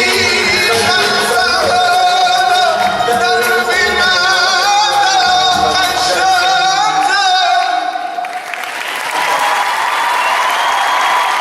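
A voice singing a wavering, ornamented melody over instrumental backing until the song ends about eight seconds in. Then an audience applauds.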